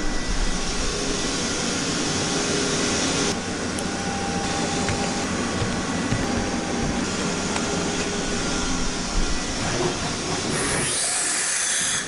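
Steady hissing, rushing machine-shop noise with a faint machine hum under it, changing abruptly to a higher, sharper hiss near the end.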